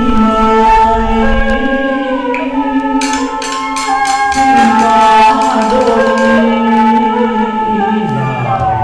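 Vietnamese chèo folk tune played on a two-string bowed fiddle (đàn nhị) and a bamboo flute (sáo), with gliding sustained melody lines. About three seconds in, a quick run of sharp wooden-sounding percussion clicks joins for two seconds or so.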